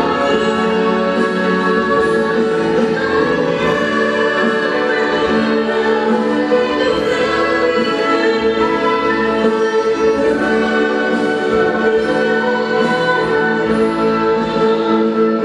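Music: singing with orchestral accompaniment, in long held notes.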